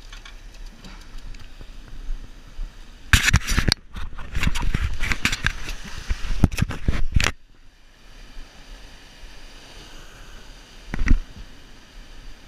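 Rough crackling and scraping noise right on the wearable camera's microphone for about four seconds, stopping abruptly, over a steady hiss of surf; a single thump about eleven seconds in.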